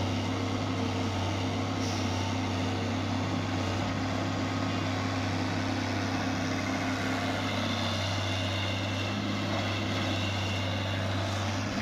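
Diesel engine of a John Deere 595D wheeled excavator running steadily under work as it digs and swings a bucket of soil, a constant low hum.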